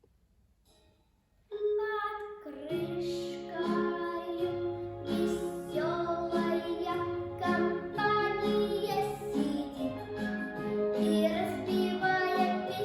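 A child singing a song with instrumental accompaniment, coming in suddenly about a second and a half in after a brief silence.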